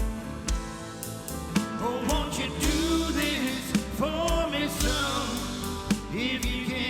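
A live band plays a slow rock song with a drum kit keeping a steady beat under held chords, while a lead melody slides and wavers in pitch. No words are sung.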